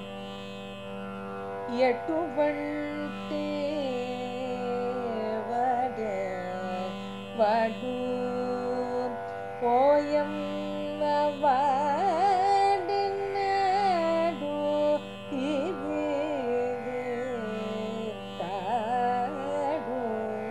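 Carnatic vocal music: a woman's voice singing a slow, heavily ornamented melody over a steady drone, the voice coming in about two seconds in.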